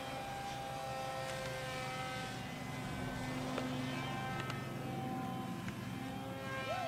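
Radio-controlled model airplane's motor and propeller droning steadily in flight, the pitch stepping up and down a few times as it flies.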